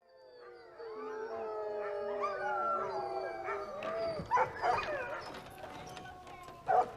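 A pack of sled dogs howling together, many voices overlapping and gliding up and down in pitch, breaking up after about four seconds into a few short barks and yips.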